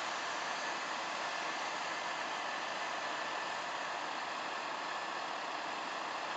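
Steady noise of distant vehicle engines idling, even and unbroken, with a faint high whine running through it.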